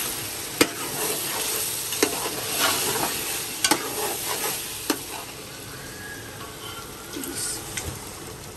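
Oil and spice masala sizzling in a cooking pot while it is stirred, with several sharp knocks of the stirring spoon against the pot in the first five seconds. The sizzle grows quieter after that.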